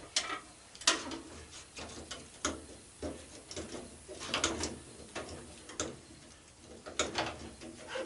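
Irregular sharp clicks and knocks of hand tools and metal parts being worked on a washing machine during a teardown, spaced about a second apart.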